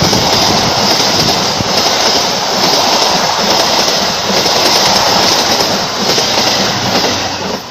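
A train passing close at speed: a loud, steady rush of wheels on rail with clickety-clack, which drops away suddenly near the end as the train clears.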